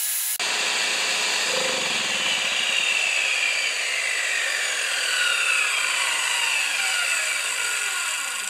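Circular saw running off a Champion 4000-watt portable generator. A little way in the generator's engine quits under the load, and the saw's whine falls steadily in pitch for several seconds as the blade and motor coast down. The owner suspects a temperature shutdown, after a new coil and spark plug did not stop it.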